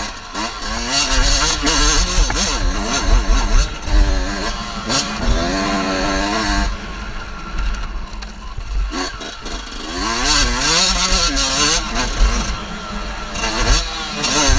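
Dirt bike engine revving up and down as the rider opens and closes the throttle through corners, the pitch climbing hard in several pulls and falling away between them.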